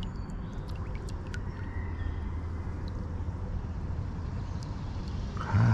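Steady low rush of creek water around a wading angler, with faint scattered ticks. A brief, louder voice-like sound comes near the end.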